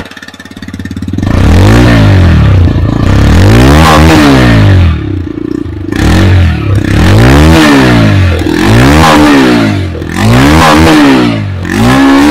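TVS Raider 125's single-cylinder engine ticking over, then revved hard six or seven times in a row, each throttle blip rising and falling in pitch. Heard close behind the stock exhaust.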